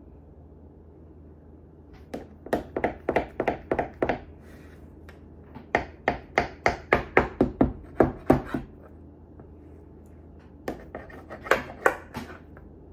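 Knife chopping through cinnamon-roll dough and tapping against the bottom of a metal baking pan, in three runs of quick strokes, about four a second in the middle run.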